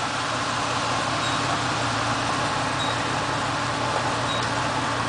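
GMC 4x4 pickup's engine idling steadily, with an even, unchanging hum.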